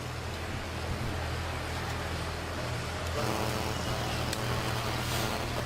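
Steady background noise like road traffic, over a constant low hum. A faint pitched drone joins in about three seconds in.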